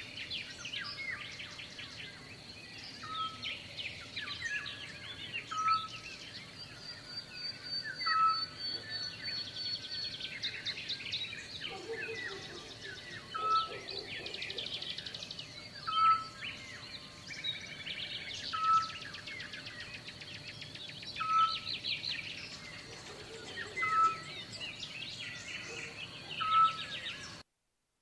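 Birds chirping and singing, several at once, with trills and one short call repeated about every two and a half seconds; the sound cuts off near the end.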